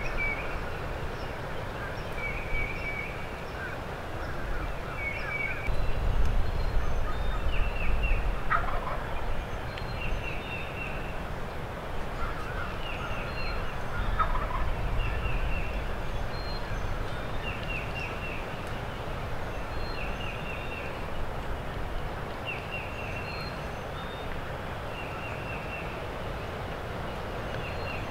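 Wild turkey gobbling in the distance from its roost, over gusty wind on the microphone. Another bird repeats a short, high, rattling phrase about every two seconds throughout.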